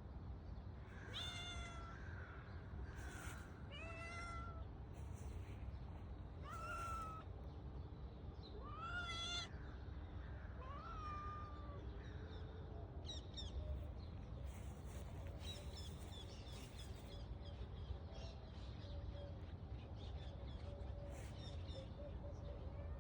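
A domestic cat meowing, about six separate meows in the first twelve seconds, each a short wavering call. They are heard over a steady low rumble, and fainter high chirps follow in the second half.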